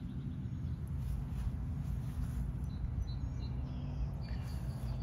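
Backyard ambience: a steady low hum with a few faint, short bird chirps.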